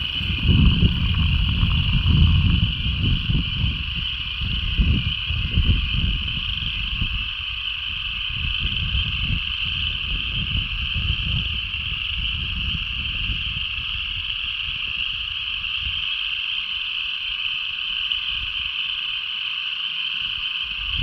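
A dense chorus of frogs calling, a continuous high-pitched ringing with no gaps. A low rumble under it is strongest over the first several seconds and dies away after about seven seconds.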